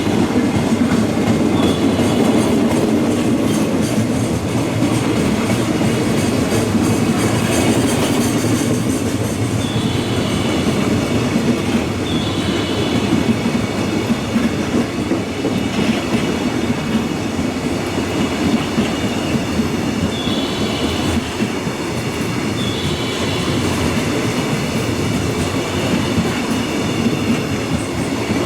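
Train running through the station: steady rumble of wheels clattering over the rails, with brief high wheel squeals a few times.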